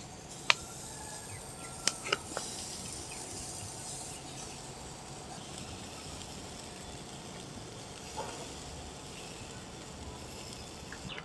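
Spice- and coconut-milk-coated chicken sizzling over charcoal: a steady hiss with light crackle as the marinade drips onto the coals. A sharp knock about half a second in as the skewered chicken is set down, then a few clicks around two seconds.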